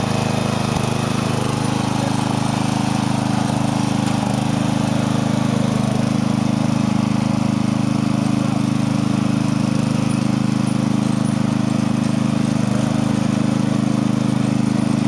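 Engine of a Murray riding lawn mower running steadily as the mower is driven along, its even note holding without revving up or down.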